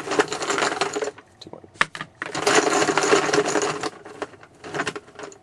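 Small hard pieces rattling and clattering inside a container as it is shaken to mix them for a random draw: two long shakes with a short pause between, and a few single clicks.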